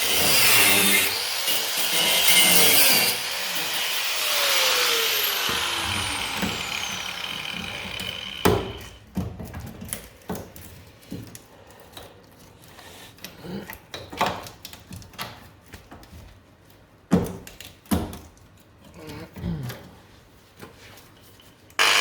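A power tool working on the car's sheet-metal bodywork, running loudly for several seconds and then winding down with a falling pitch. After that come scattered sharp knocks and clinks of metal being handled, with a loud sound starting again right at the end.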